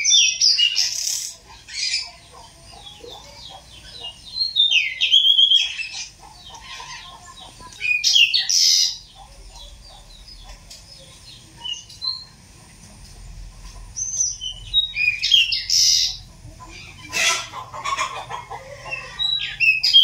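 Pied bushchat (decu) singing: short, bright, chattering phrases about a second long, repeated about six times with pauses between.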